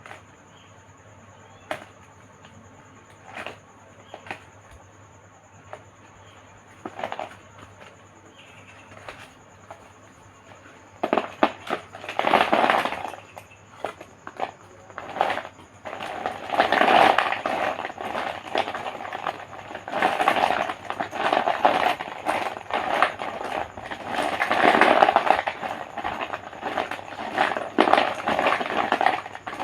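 Chalk being crumbled and crushed: a few scattered snaps and crackles at first, then, about a third of the way in, dense crunching that comes in long waves.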